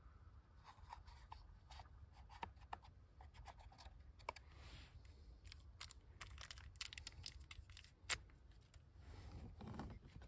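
Faint scattered clicks, taps and scratching of hands handling small parts and materials, with one sharper click about eight seconds in and a brief rustling swish near the end.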